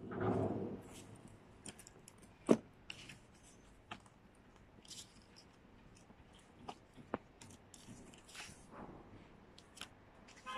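Handling noises from a bag and its card and paper packaging: a rustling scrape at the start, one sharp click about two and a half seconds in, then scattered light taps and rustles.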